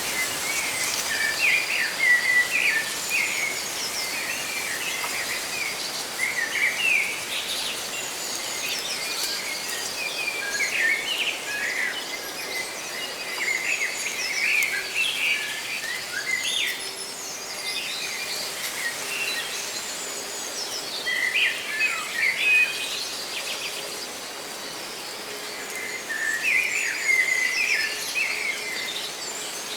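Several songbirds chirping and twittering in short, irregular bursts over a steady hiss of rustling leaves.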